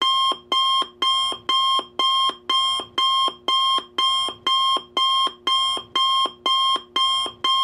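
Electronic alarm-clock beeping, starting abruptly out of silence and repeating about twice a second in an even rhythm: the timer's end alarm, signalling that the countdown has reached zero.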